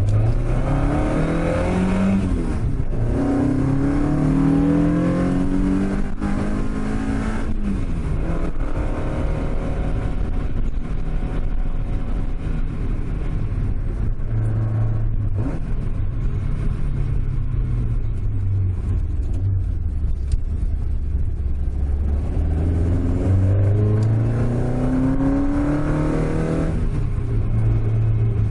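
Toyota AE86's 5-valve 4A-G four-cylinder engine, heard from inside the cabin, revving up under acceleration. The revs climb, drop at a gear change and climb again. The engine then settles into steady cruising before another climb in revs near the end.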